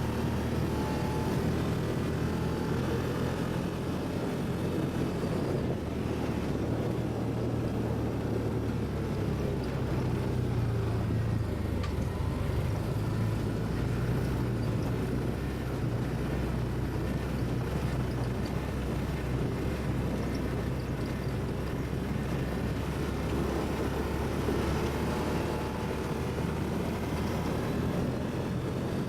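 ATV engine running steadily while riding, its low drone shifting slightly in speed about twelve seconds in.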